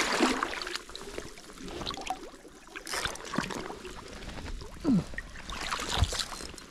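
Creek water splashing and sloshing close by, with rustling and knocking of clothes and fishing gear as the angler reaches the rod under a log with a fish on. A dull thump about six seconds in.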